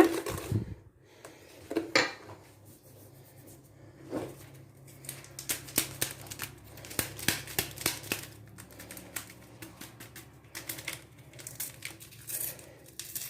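A kitchen utensil clicking and scraping against a bowl as plain yogurt is worked into a batter of eggs, sugar and oil. One sharp knock comes about two seconds in; from about four seconds in there are quick, irregular taps, with a faint low hum underneath.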